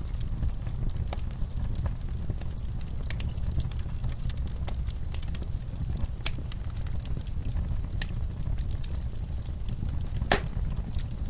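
Wood fire in a fireplace crackling and popping, with irregular sharp snaps over a steady low rumble of the flames. One louder pop comes near the end.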